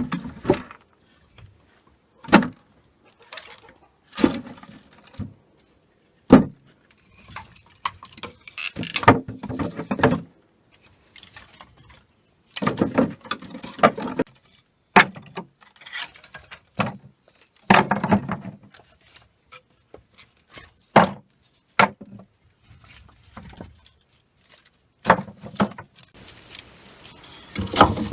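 Scattered knocks, clicks and short clattering and rustling, irregularly spaced, from objects being handled by hand.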